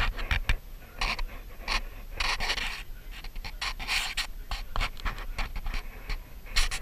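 Wooden stirring stick scraping and stirring thickened resin in a plastic tub, in short irregular strokes, with heavy breathing close to the microphone.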